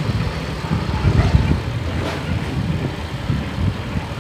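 Wind buffeting the microphone of a camera riding on a moving bicycle: a low, uneven rumble with traffic noise.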